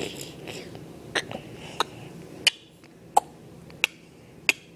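A series of short, sharp clicks, evenly spaced about one every two-thirds of a second, with faint breathy noise near the start.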